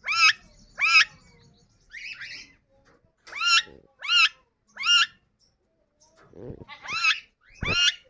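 Yellow Indian ringneck parakeet giving short, shrill calls, each rising then falling in pitch, about eight of them in irregular groups.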